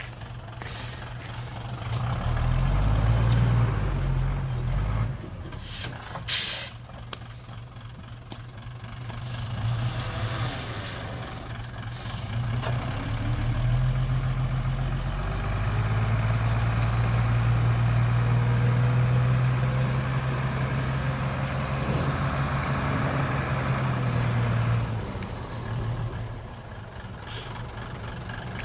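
Heavy diesel engine of the machinery running, swelling in level twice as it works under load. A few short sharp noises stand out, the loudest about six seconds in.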